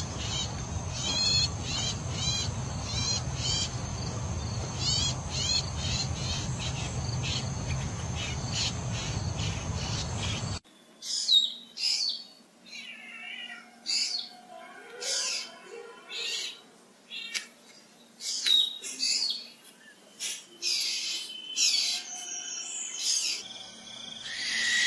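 Long-tailed shrike calling: a run of short, sharp notes about two a second, over a low rumble. About ten seconds in, it cuts to a black drongo giving a varied series of loud, separate whistles and harsh calls. Near the end a barn owl's long, harsh screech begins.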